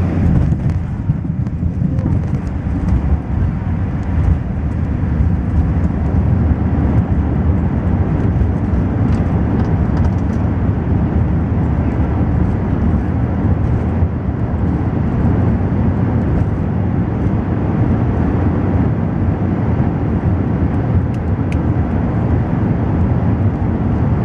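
Steady low rumble of cabin noise inside a Qantas Airbus A380 during its arrival at Singapore.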